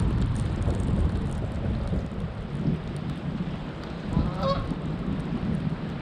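A steady low rumble with one short honk about four and a half seconds in.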